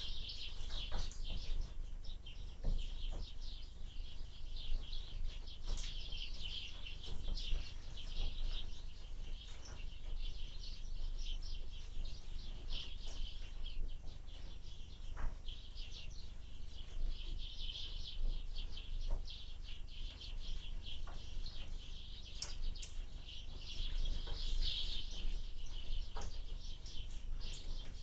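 Small songbirds chirping and twittering continuously in rapid, overlapping calls, over a steady low rumble of wind on the microphone.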